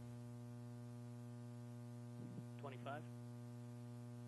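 Steady electrical mains hum, with a brief faint voice about two seconds in.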